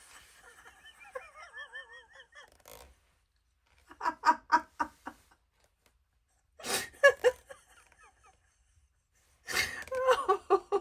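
A woman laughing in fits: a wavering, high-pitched giggle at first, then three separate bursts of quick ha-ha pulses with pauses between.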